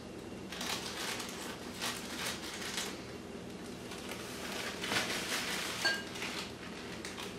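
Quiet, irregular rustling and light scraping of a bag of dry cake mix being emptied into a mixing bowl, with a few soft knocks.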